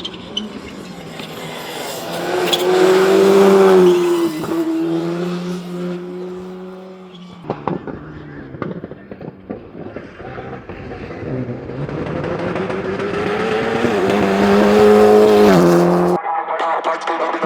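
Rally cars going past at full throttle, twice. The first engine builds for about three seconds and drops in pitch as it passes, followed by a run of sharp cracks. A second car builds to a peak near the end and cuts off abruptly.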